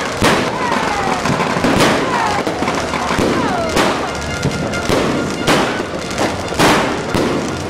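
Fireworks going off in a rapid series of bangs, roughly one a second, with whistling tones gliding down in pitch between the bangs.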